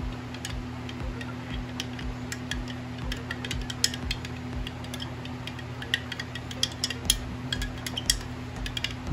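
Metal spoon stirring in a glass jar, clinking and ticking against the glass in quick, irregular clicks.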